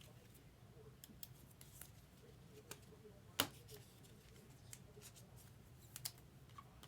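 Trading cards being handled and slid into plastic sleeves: faint scattered clicks and light plastic ticks, the sharpest about three and a half seconds in, over a low steady hum.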